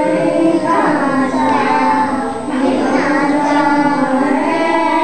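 A group of young children singing together, holding long notes.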